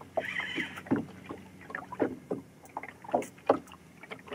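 Water slapping and knocking irregularly against a small boat's hull, with a short rasp near the start from the fishing reel's loosely set drag giving line to a hooked tope.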